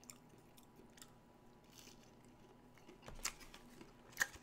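Faint chewing of a McDonald's chicken nugget. A couple of sharper clicks come near the end as a box is handled.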